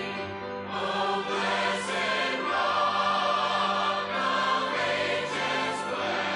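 Choir singing a hymn-like gospel song with music, voices holding sustained notes.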